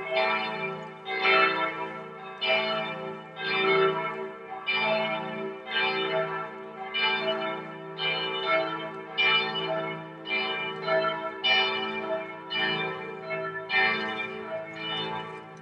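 Church bells swinging in a full Easter peal, with strikes coming at about one a second and overlapping over the continuous hum of the bells still ringing.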